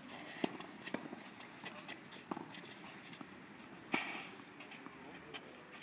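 Tennis rally on a clay court: a few sharp pops of the racket striking the ball and the ball bouncing, spaced about a second apart. The loudest pop, about four seconds in, is the near player's shot.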